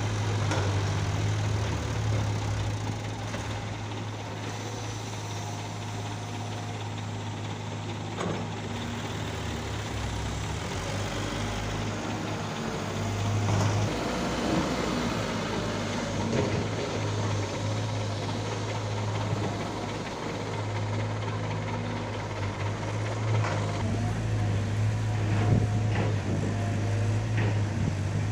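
Heavy diesel engine running steadily with a deep hum, broken by a few short knocks and clanks, as an excavator loads dug soil into a dump truck.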